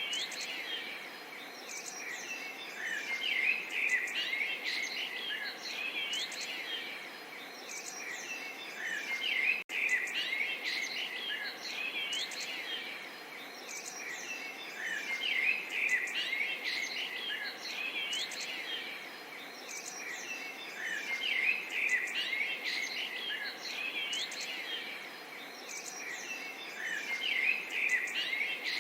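A chorus of small birds chirping and singing, many short overlapping calls and whistles, over a steady background hiss. The sound dips briefly about ten seconds in.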